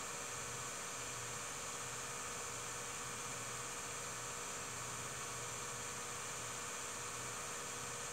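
Steady electrical hum with hiss and no other sound: the noise floor of a silent home-movie film transfer.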